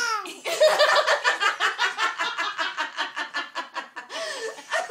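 Rapid, rhythmic high-pitched laughter, about eight quick pulses a second for some three seconds, then a short lower vocal sound near the end.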